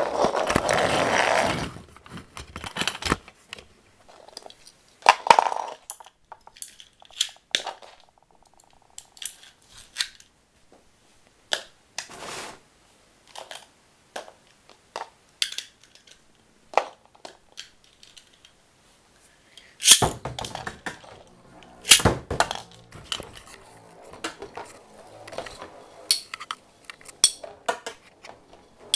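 Beyblade spinning tops and their plastic launchers clicking and knocking as they are handled, with a burst of rattling at the start and two loud sharp clacks about two seconds apart two-thirds of the way through. The tops then spin and rattle against each other and the walls of the plastic Striker Stadium.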